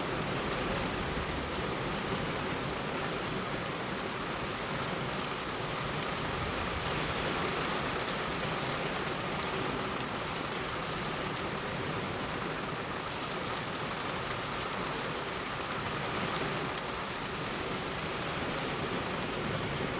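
Heavy rain falling steadily on a road: an even, unbroken hiss of rain with no thunder.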